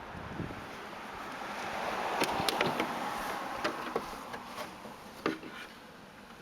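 Handling of a Hummer H3 tail light housing and its bulb socket: rustling and scraping of the plastic parts, with several sharp plastic clicks. The rustling swells about a second in and fades after the midpoint.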